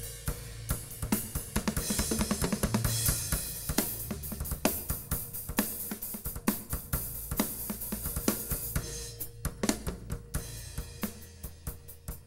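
A band playing, led by a drum kit: a rapid run of snare, kick and hi-hat hits, with a bright cymbal wash about two seconds in, over steady low bass notes.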